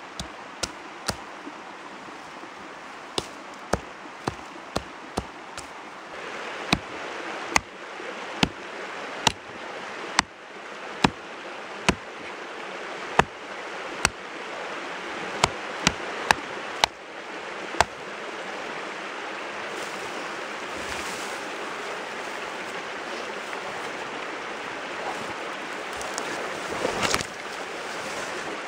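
Axe blows chopping into a dead tree trunk: sharp strikes at an uneven pace, roughly one a second, stopping about two-thirds of the way through. Under them runs the steady rush of river water.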